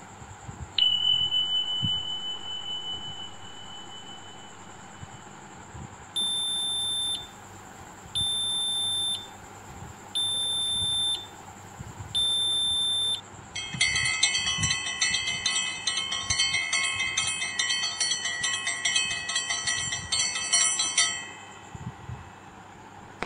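Electronic alarm sounds: a single chime that rings and fades, then four one-second beeps two seconds apart, then a fast electronic ringing tune for about seven seconds that cuts off suddenly.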